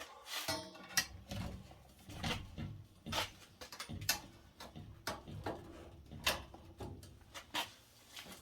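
Irregular small clicks and knocks, about a dozen sharp taps spread unevenly, some with a short metallic ring: tools and plumbing parts being handled during pipe fitting.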